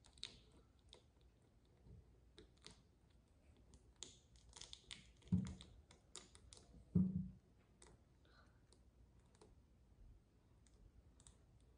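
Marker tip tapping and scratching on a plastic tea light while dots for eyes and a mouth are drawn: faint scattered small clicks, with two louder dull bumps about five and seven seconds in.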